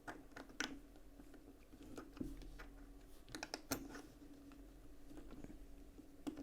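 Light clicks and taps of the Spyderco Delica's small parts and Flytanium scales being handled and pressed together during assembly. A few scattered sharp ticks come with a quick run of them around the middle, over a faint steady hum.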